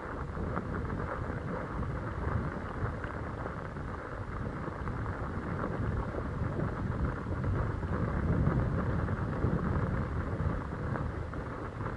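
Wind rumbling over the microphone mixed with tyre noise on the trail while riding, a steady low rush that swells a little about two-thirds of the way in.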